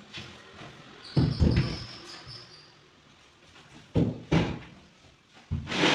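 Several irregular heavy wooden thuds and knocks from a large plywood box being handled, with a brief high squeak just after the first knock about a second in.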